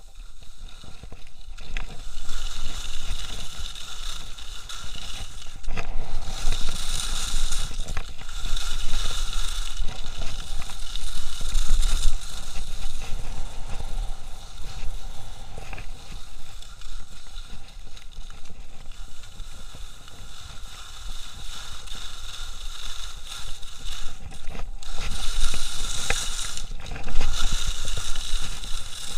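Skis carving and scraping over hard groomed snow on a fast downhill run, with wind rushing over the body-worn camera's microphone. The hiss of the edges swells in two stretches of harder turns.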